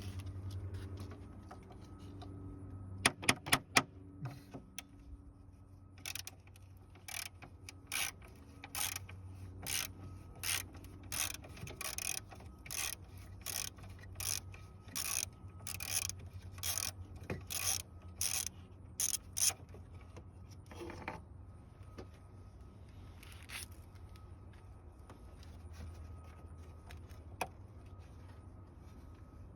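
Ratchet wrench backing out a 10 mm bolt: a few sharp clicks, then a steady run of ratcheting strokes a bit under two a second that stops about twenty seconds in.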